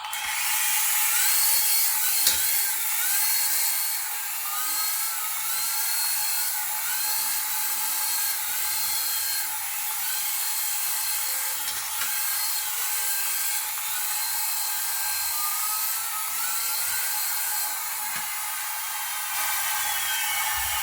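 Small electric motor of a remote-control toy whining steadily at high pitch, its tone wavering up and down as the throttle changes.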